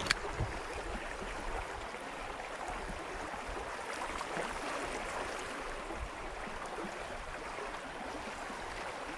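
Steady rush of stream water flowing over the rocks at a waterfall, with a sharp click at the very start.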